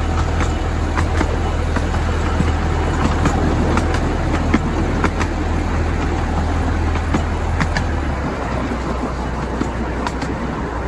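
Miniature railway train running along the track: a steady low drone from the locomotive that drops in pitch about eight seconds in, over the rumble of the wheels, with scattered sharp clicks as they pass over rail joints.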